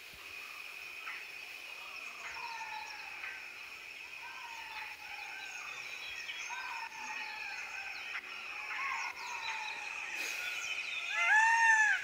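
Forest ambience: a steady high insect drone with birds calling over it in a series of falling whistles. Near the end a much louder animal call rises and falls.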